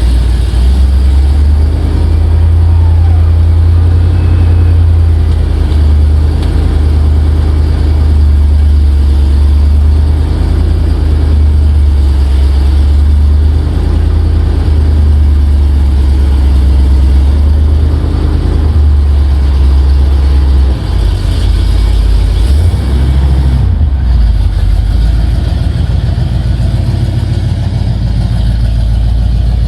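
Car being driven: a loud, steady low rumble of engine and road noise, which shifts and eases a little about two-thirds of the way through.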